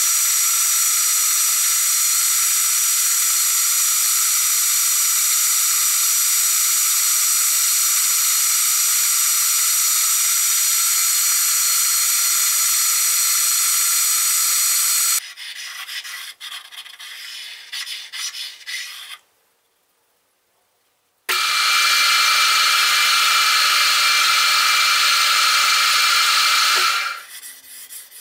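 Milling machine cutting a zigzag oil-groove pattern into a lathe saddle with a small ball end mill under flowing coolant: a steady, high hissing run with a few held tones. About fifteen seconds in it breaks off into a few quieter knocks and a brief silence, then runs again steadily for about six seconds before stopping.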